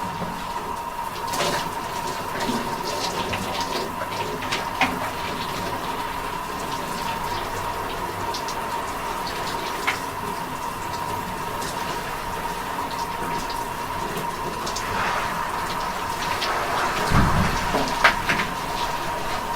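Shower water running steadily, spray hissing as it falls, with scattered sharp drips and splashes and a brief louder splash near the end.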